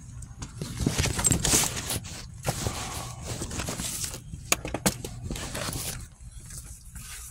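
Handling noise on a phone's microphone: irregular scraping and rustling with a few sharp clicks, over a low steady rumble.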